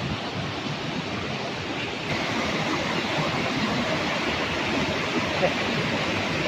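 Steady rush of a waterfall, turning a little louder about two seconds in.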